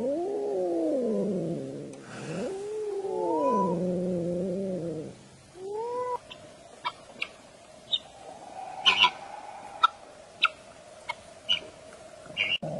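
Cat yowling in long drawn-out calls: a falling one of about two seconds, then a longer one of about three seconds, then a short meow about six seconds in. After that come scattered short, high chirps and clicks.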